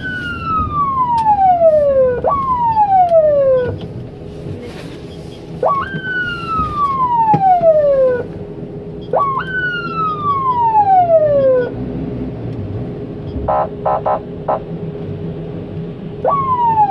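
Emergency siren sounding in separate sweeps, each jumping up sharply and then gliding down for about two seconds, with pauses between them. A quick run of short beeps comes about two-thirds of the way through.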